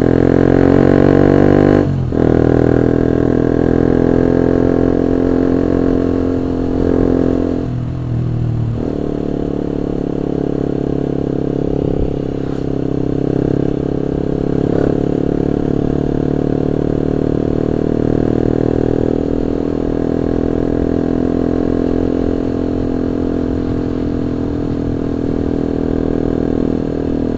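Honda CB150R's single-cylinder engine running at riding speed, with wind noise on the microphone. The engine note dips briefly about two seconds in, and it changes and eases around eight seconds in.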